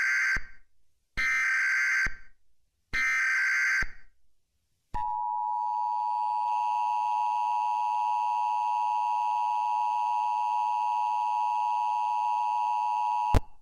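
Emergency Alert System tornado warning: three short data bursts of the SAME header, about a second apart, then after a pause the steady two-tone attention signal, which cuts off with a click near the end.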